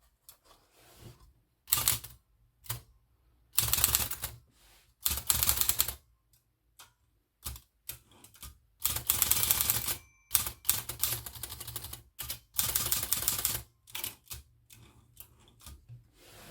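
Olivetti Lettera 22 portable typewriter mechanism clicking in bursts of rapid clicks, each up to about a second long, with short pauses between them.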